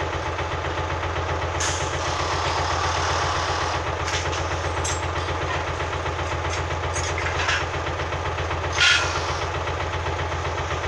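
Diesel engine of construction machinery running steadily with a deep, even hum, broken by a few metallic knocks, the loudest about nine seconds in.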